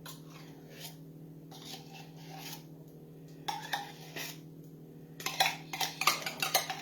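A spoon scraping and clinking against a can and a mixing bowl as condensed cream of chicken soup is emptied into the bowl. The clinks come in scattered clusters and grow denser and louder near the end, over a steady low hum.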